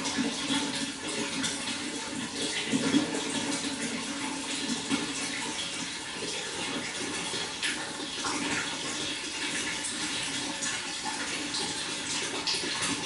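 Water flowing and splashing steadily.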